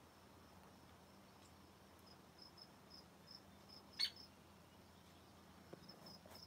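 Near silence with faint high-pitched chirps repeating a few times a second, and one short, sharp call about four seconds in.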